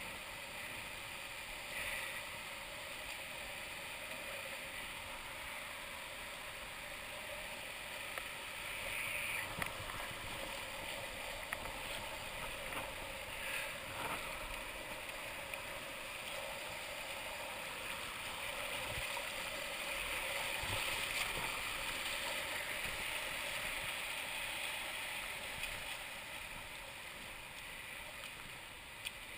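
Steady rush of a shallow river running over rocks and small rapids, with occasional splashes from people wading through the current.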